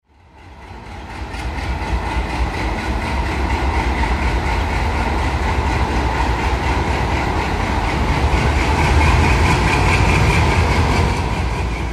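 WDP3A diesel-electric locomotive's ALCO 251 V16 engine running under load as it hauls a passenger train past, a heavy low rumble with a steady whine above it. The sound swells over the first couple of seconds, is loudest a couple of seconds before the end, then begins to ease.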